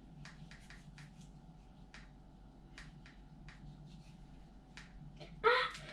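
Faint, irregular sticky clicks and small pops of slime being squeezed and worked by hand. A brief loud burst of voice comes in near the end.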